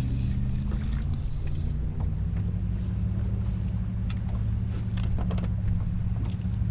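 A boat engine drones steadily at a low pitch, with a few light clicks and knocks of handling gear on the kayak.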